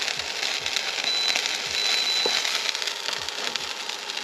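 Oil and liquid sizzling and crackling in a steel wok heating on a portable induction cooktop. A faint high tone sounds briefly about a second in.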